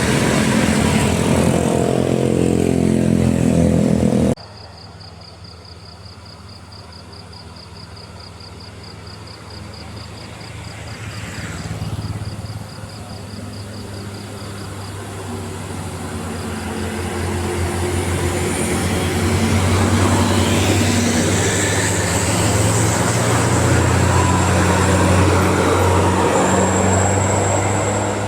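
A large road vehicle passing close with its engine loud, cut off abruptly about four seconds in. After a quieter stretch with a high, evenly pulsing chirp, another heavy engine, a bus climbing the hill, draws near and grows steadily louder with a deep hum.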